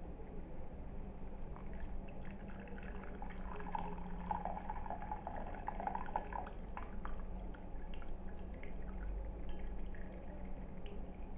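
Liquid poured through a kitchen strainer into a container, pouring and dripping, strongest from about three and a half to six and a half seconds in, with a few light clicks of utensils.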